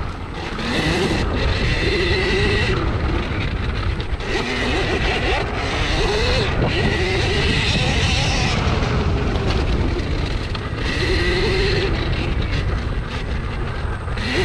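Husqvarna EE 5 electric minibike being ridden: its motor whines, rising and falling in pitch many times as the throttle is worked, with a higher whine that cuts in and out. A steady low rumble of wind and terrain runs underneath.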